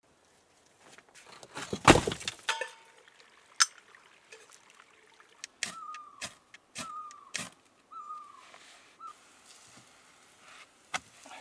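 Outdoor work sounds: a loud rough crunch about two seconds in, then a run of sharp knocks. Between the knocks a short whistled call repeats four times, about a second apart.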